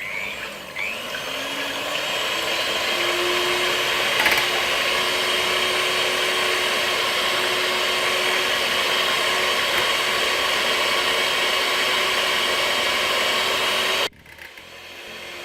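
Electric hand mixer whisking eggs in a bowl: the motor rises in pitch as it spins up, runs steadily, then is switched off about 14 seconds in and winds down with a falling whine.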